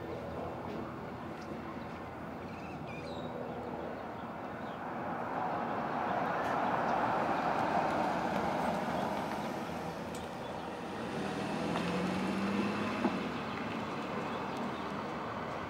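Steady road-traffic noise that swells as a vehicle passes about six to nine seconds in. Near the end, an engine rises in pitch, followed by a single sharp click.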